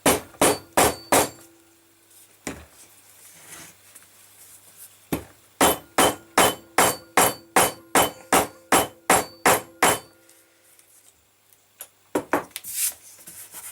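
Hammer blows setting a leather belt loop in place: a quick run of about five strikes, a single strike, then a steady run of about a dozen at roughly two a second, each with a short metallic ring, and a few more near the end.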